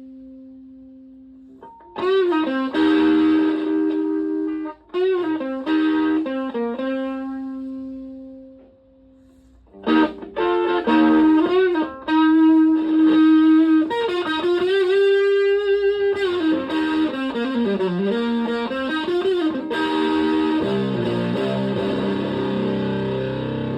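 Stratocaster played through a Tone Bender MK1.5-style fuzz pedal into a Twin Reverb-type amp. A held note fades out, then lead phrases with string bends follow. After a short pause the playing moves to a lower, fuller riff near the end.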